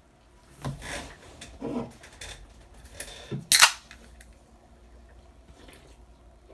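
An aluminium Coca-Cola can being handled, with a few light knocks and rubs, then a sharp crack with a short fizz about three and a half seconds in as its pull tab is snapped open.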